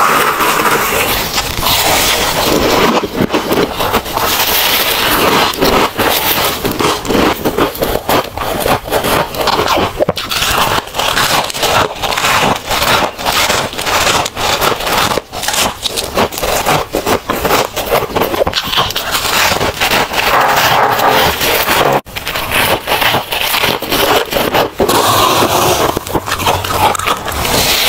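Soft freezer frost and ice being scraped and crunched close to the microphone: a dense, continuous run of crackly scrapes, with abrupt breaks about ten and twenty-two seconds in.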